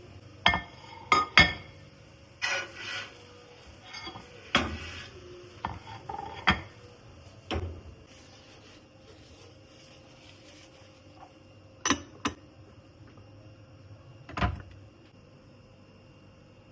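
Dishes and kitchen utensils clinking and knocking as they are handled: a quick run of sharp clinks over the first several seconds, then two close together and one more later on.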